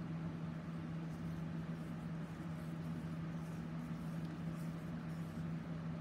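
A steady low mechanical hum, with faint soft rustles over it.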